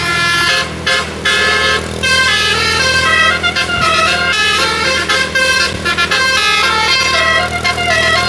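Indonesian bus telolet horn, a multi-trumpet Basuri air horn, playing a melody of held notes that step up and down, with a few short breaks about a second in, over a steady low engine hum.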